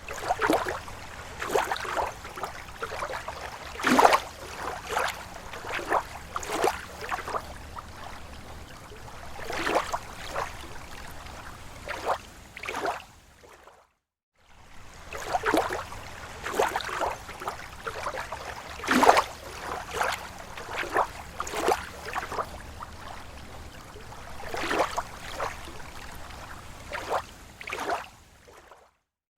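Small waves lapping against a lake shore: irregular wet slaps and splashes every second or so over a steady low rumble. The sound cuts out briefly about halfway through.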